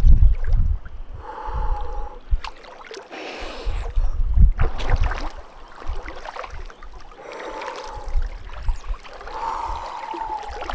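Lake water splashing and sloshing as a person dips down and swims in cold water, loudest in a burst of splashing about three to five seconds in. Wind gusts rumble on the microphone.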